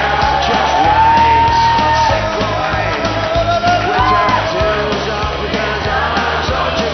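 Music with a sung vocal line held on long notes over a steady beat.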